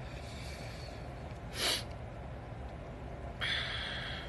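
A short, sharp breath close to the microphone about one and a half seconds in, and a longer hissing breath-like noise near the end, over a steady low background hum.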